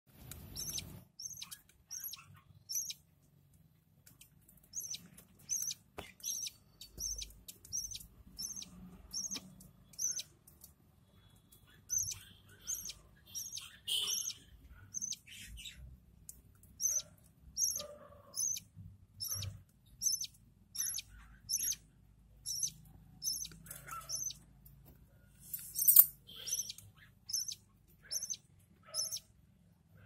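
Budgerigar nestlings begging while a parent feeds them: short, high cheeps repeated about one to two a second in runs with brief pauses, and one louder call about 26 seconds in.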